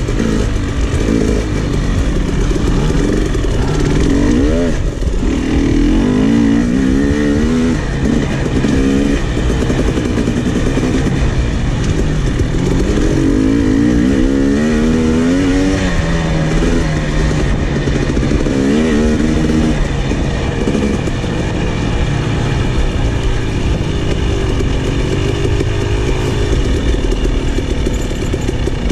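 KTM 300 XC single-cylinder two-stroke dirt bike engine being ridden, its pitch rising and falling many times as the throttle is opened and shut.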